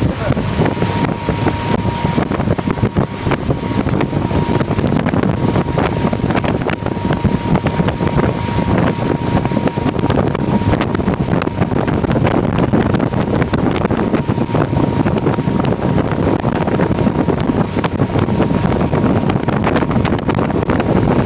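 Motorboat under way at towing speed: steady engine noise mixed with wind buffeting the microphone and the rush of the wake.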